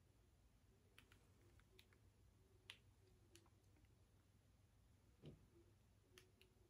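Near silence: quiet room tone with a low hum and a few faint, scattered clicks.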